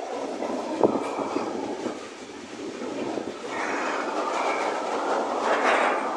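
Container wagons of a freight train passing, steel wheels running on the rails, with a sharp knock about a second in.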